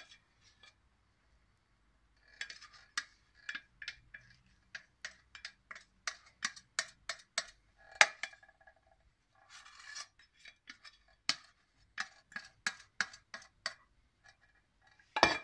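A spoon clinking and scraping against a small saucepan in a run of sharp taps, roughly two a second, as the last of the melted butter is spooned out, with a louder knock at the very end.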